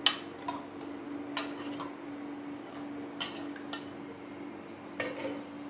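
Metal spoon clinking and scraping against an earthenware cooking pot while stirring mutton in water, about seven sharp clinks with the first the loudest, over a steady low hum.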